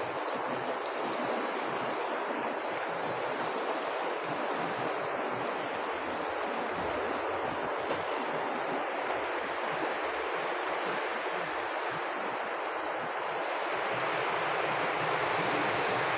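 Flowing stream water rushing steadily, an even hiss with no breaks.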